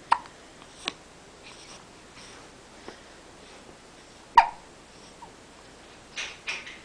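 A baby hiccupping: short, sharp hiccups at the start, just under a second in, and the loudest about four seconds in, with a softer breathy baby sound near the end.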